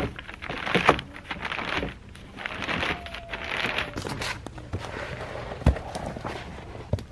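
Plastic greenhouse sheeting crinkling and rustling as it is rolled up, then footsteps and a couple of sharp knocks, the loudest about two thirds of the way through.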